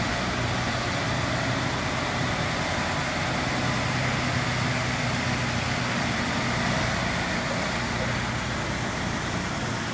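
Foden articulated lorry's diesel engine running steadily as it drives slowly past close by, pulling a box trailer, with tyre and road noise.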